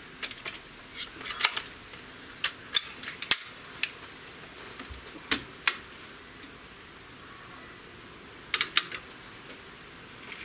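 Scattered sharp clicks and clacks of a Hatsan Torpedo 150 Sniper under-lever gas-piston air rifle being cocked and its breech worked to load a pellet between shots, with a quick cluster of clicks about three-quarters of the way through.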